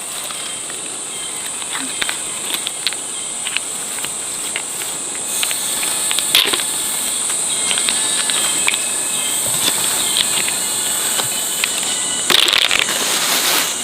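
A steady, high-pitched drone of insects, with scattered short clicks and knocks and a louder rustling scrape near the end.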